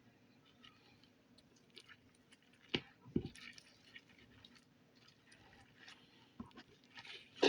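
Slime being squished and worked by hand: soft, scattered sticky clicks, with a few louder pops about three seconds in and again near the end.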